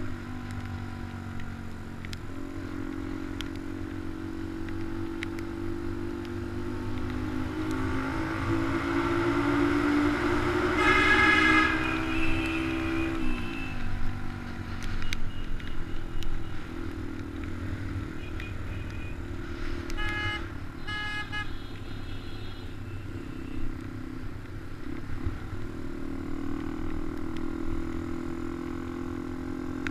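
Small motorbike engine running under way, its pitch climbing and then dropping sharply about halfway through. A horn sounds for about a second near the peak, and a few short horn toots follow a little later.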